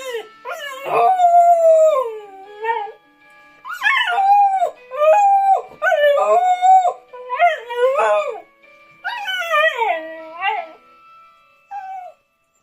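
A pet dog howling along to an alarm's melody: a run of long, wavering howls that swell and fall, over the faint steady beeping tones of the alarm. The last short howl comes near the end.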